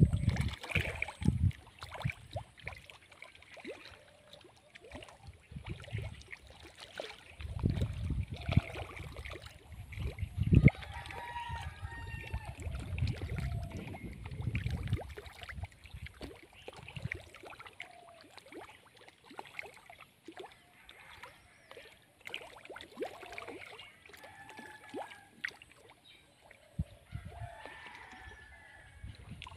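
Chickens clucking and calling on and off, with a longer falling call about eleven seconds in. A low rumble on the microphone runs from about seven to fifteen seconds, with one sharp knock near its middle, the loudest moment.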